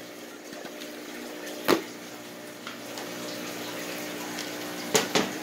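Aquarium filtration running: a steady trickle of water from the hang-on-back filter and circulation pump, with a steady motor hum under it. Two short sharp clicks, one a little under two seconds in and one near the end.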